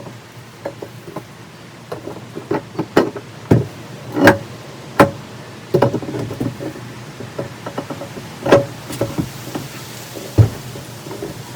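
Metal parts knocking and clinking in an irregular run of sharp knocks, some ringing briefly, as an ATV rear hub is fitted onto the axle.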